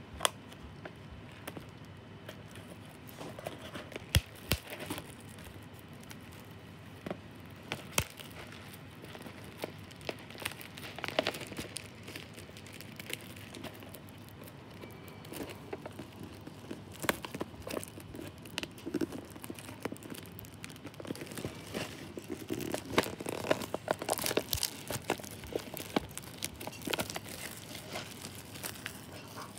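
Clear plastic shrink-wrap being peeled and torn off an instant noodle bowl: irregular crinkling and crackling with a few sharp clicks, busiest near the end.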